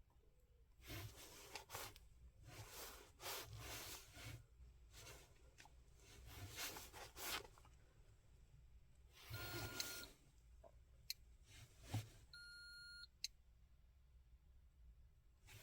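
Quiet handling and rustling with a couple of sharp clicks, and an electronic beep from an OBD diagnostic scan tool: a short one midway and a steady beep just under a second long near the end.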